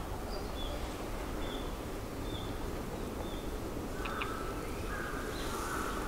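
Red-flanked bluetail giving short, thin, high call notes, repeated every second or so, over a low steady rumble.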